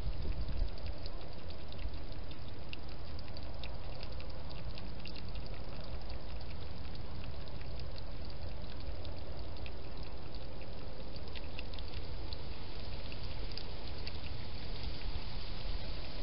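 Wild hedgehog feeding at a bowl: faint, irregular small wet clicks over a steady hiss.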